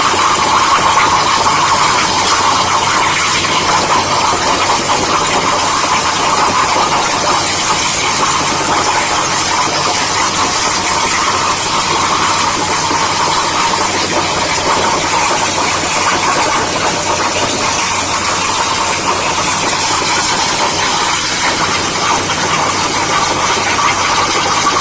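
CNC plasma cutter torch cutting metal: a loud, steady hiss.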